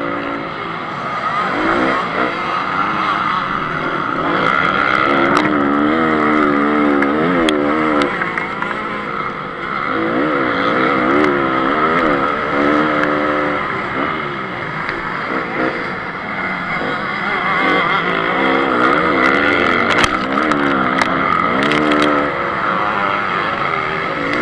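Honda CRF 250 single-cylinder four-stroke motocross engine heard onboard under race throttle, its pitch rising and falling again and again as the rider opens and closes the throttle through the gears. Steady wind noise runs under it, with a few sharp clicks.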